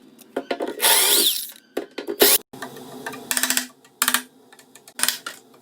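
Power drill running in several short bursts with pauses between them.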